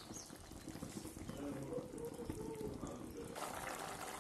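Chicken curry gravy bubbling as it simmers in a pan, a dense run of small pops and gurgles.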